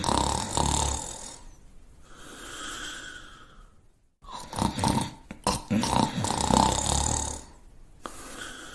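A person snoring heavily, twice: each time a loud, rough, rattling snore is followed by a softer, whistling breath.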